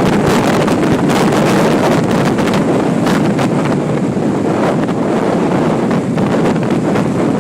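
Strong gusting wind buffeting the microphone, a loud, steady rumble and roar.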